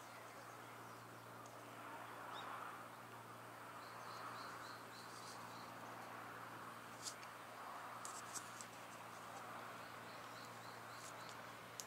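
Faint outdoor ambience: small birds chirping in quick short series, with a few sharp ticks, over a steady low hum and a soft hiss that swells and fades.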